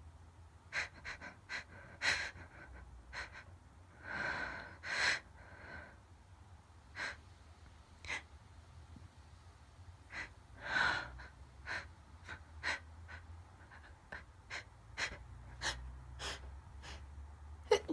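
A woman's uneven gasping breaths and short sharp sniffs as a sneeze builds up. Longer drawn breaths come about 4, 5 and 11 seconds in, between many quick intakes.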